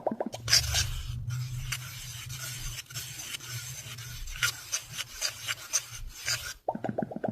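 Fast, dense scratching on a surface for about six seconds. Quick rows of short pops come just before it and again near the end.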